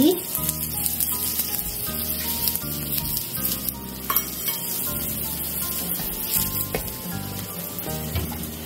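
Sattu paratha frying in ghee on a hot griddle: a steady sizzle, with a few short knocks.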